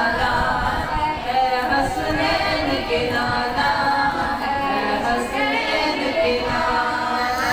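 A boy singing a naat unaccompanied, a devotional poem in praise of the Prophet, with long held and gliding notes, into a handheld microphone.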